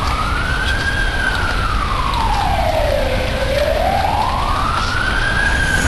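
Siren wailing: one tone slowly rising and falling, peaking about a second in and again near the end, over a steady low rumble.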